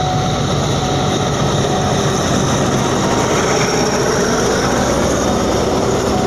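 Train passing through a level crossing at close range, a steady, loud rumble of wheels on rails and engine.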